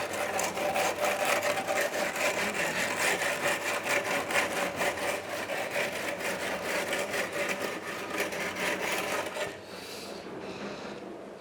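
Rapid, rhythmic scraping and rubbing from work on a freshly poured concrete floor. It stops abruptly about nine and a half seconds in, and a fainter steady noise remains.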